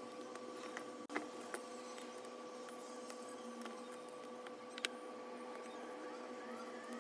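Small clicks and light scratching of tools and phone parts being handled on a workbench, with a few sharp clicks, over a steady electrical hum.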